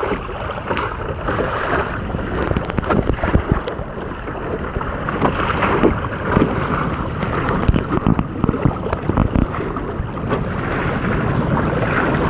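Water splashing and lapping against the hulls of a sailing Hobie Tandem Island trimaran kayak, with many small sharp slaps, under steady wind buffeting the microphone.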